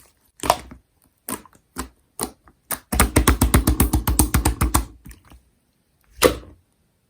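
Slime being pressed and squeezed by hand, making wet clicking pops: a few single clicks, then a quick run of about ten clicks a second for about two seconds starting about three seconds in, and one last squelch near the end.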